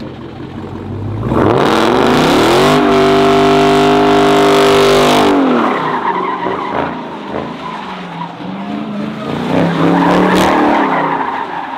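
A car drifting: the engine revs up a bit over a second in and is held high for about four seconds while the tyres spin and squeal, then the revs fall and the engine runs lower and quieter.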